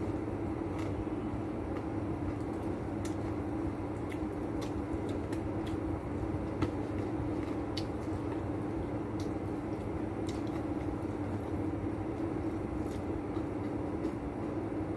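A steady mechanical hum with faint scattered clicks and crackles from crispy fried chicken being eaten and a paper box being handled.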